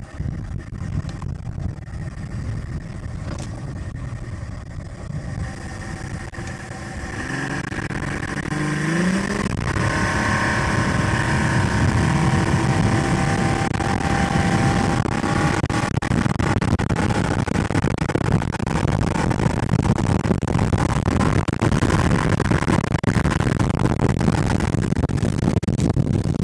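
Yamaha two-stroke outboard motor running, rising in pitch as it is throttled up about seven to ten seconds in, then running louder and steady at speed, with wind and water rushing past the hull.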